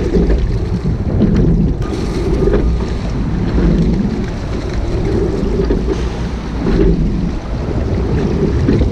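Wind buffeting the microphone over water rushing along a sculling shell's hull, swelling and easing about every two seconds with the rowing strokes. A few sharp clicks about two seconds in.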